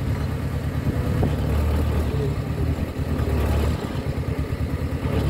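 Engine of a small old tipper truck running steadily with a rapid low chugging, while the truck's bed is raised to dump soil.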